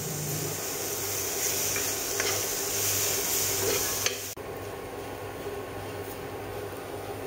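Food sizzling as it fries in a nonstick frying pan, stirred with a metal spoon that scrapes and clicks against the pan, over a steady low hum. The sizzle drops abruptly a little past halfway.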